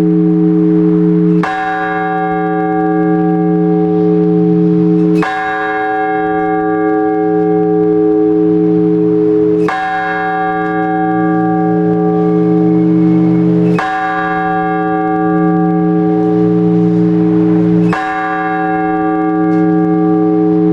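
Orthodox church bell rung as blagovest: one large bell struck slowly and evenly, about every four seconds, five strokes, each ringing on into the next. It is the call to the all-night vigil.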